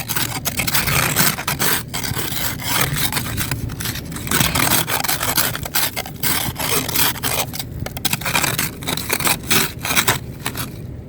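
Ice being scraped off a car window in quick repeated strokes, about two a second.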